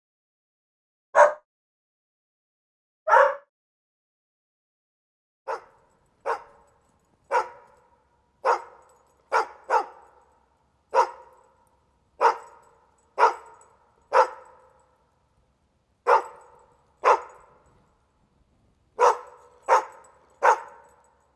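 A dog barking in single, separate barks. Two come early with gaps between them; then from about five seconds in they come roughly once a second, each with an echoing tail, and a few pauses break the run.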